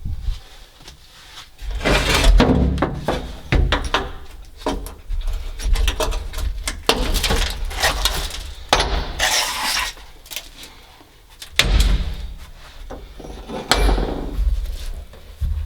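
Hand tools knocking, clattering and scraping on metal parts in a series of irregular knocks and clinks, with a few louder, longer scrapes.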